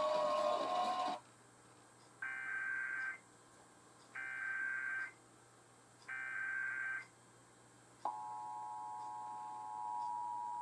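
Emergency Alert System SAME header: three bursts of digital data tones, each about a second long and a second apart. About eight seconds in, the steady two-tone EAS attention signal starts and holds. Before the bursts, about a second in, the TV programme's speech is cut off abruptly.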